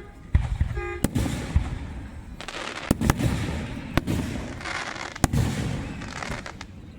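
Fireworks going off: about five sharp bangs from shell bursts spaced one to two seconds apart, with a noisy wash trailing after each.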